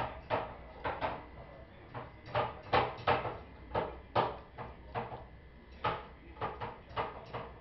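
A dachshund eating avocado from the peel: a run of short, irregular chewing and lip-smacking clicks, about two a second.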